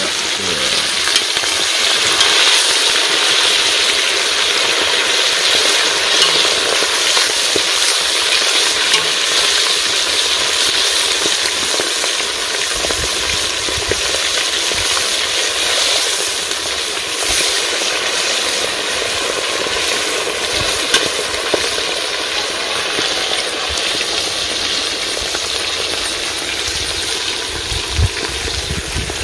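Barracuda pieces deep-frying in a pot of hot oil over a wood fire: a steady sizzle with scattered crackles.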